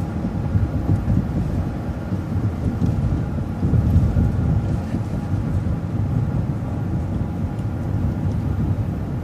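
City transit bus driving along the street, heard from inside: a steady low rumble of engine and road noise.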